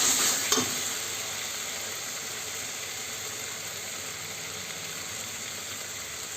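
Chicken and potato curry sizzling in hot oil in a pan, just after chili and turmeric powder have gone in. Two sharp knocks of the stirring spoon come in the first half second, then a steady sizzle.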